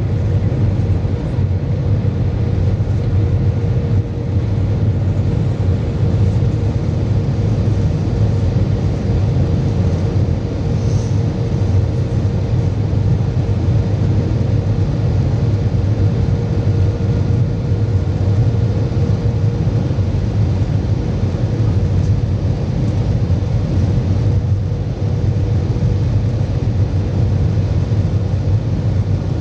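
Steady cabin noise inside an Airbus A320 airliner: a low, even rumble of engines and airflow with a faint steady hum.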